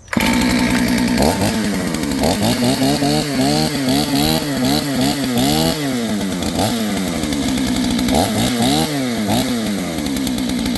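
A kit-built clone two-stroke chainsaw fires and keeps running, its engine pitch rising and falling over and over instead of holding steady. The owner takes this uneven running as a sign that the saw needs tuning.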